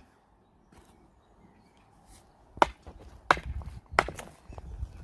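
Three sharp hammer blows on a wooden stake being driven into the ground, about two-thirds of a second apart, after a pause of a couple of seconds.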